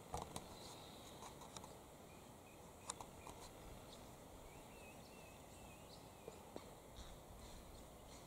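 Faint, short galah calls scattered over a quiet bush background: a few sharp notes in the first few seconds, then a soft high twittering in the middle.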